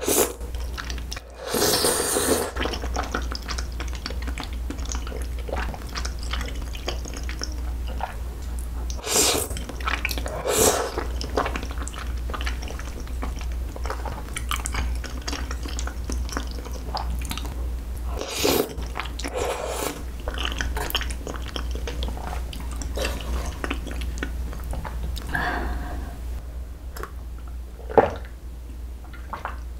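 Close-miked eating: slurping of flat glass noodles in a creamy rosé sauce and wet chewing, with a few loud slurps and many small mouth clicks. Near the end she sips from a glass of water, with one sharp click.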